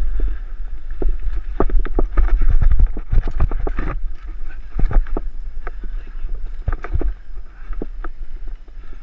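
Mountain bike rattling and knocking over a rough dirt trail, recorded by a helmet camera, with wind buffeting the microphone as a steady low rumble. The knocks come in quick clusters, thickest between about one and a half and four seconds in.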